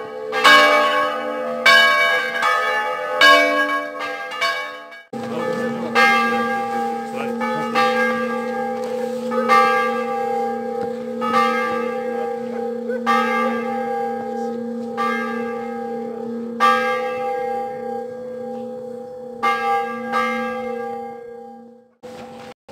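Church bells ringing, repeated strikes each leaving a long ringing tone. About five seconds in the ringing changes abruptly to a deeper, slower peal with roughly a strike a second, and it stops suddenly near the end.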